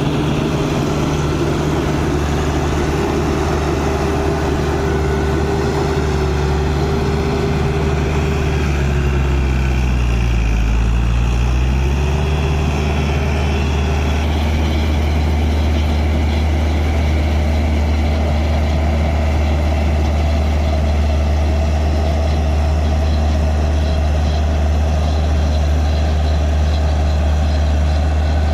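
An Ashok Leyland 88 hp diesel engine on a combine harvester runs steadily while it cuts rice. Its pitch sags briefly about ten seconds in and then comes back up.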